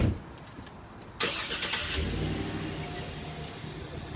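A thump, then a vehicle engine starting: a short burst of cranking about a second in, after which the engine catches and idles steadily.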